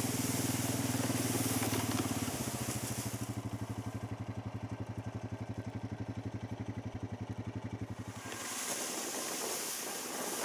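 A vehicle engine running steadily, then settling into a low, rapidly pulsing throb about two seconds in. About eight seconds in the engine note stops and wind buffets the microphone.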